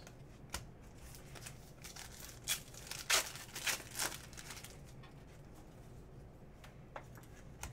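Baseball trading cards being flipped and shuffled by hand: short scattered clicks and paper rustles of card edges sliding against each other, busiest around three to four seconds in.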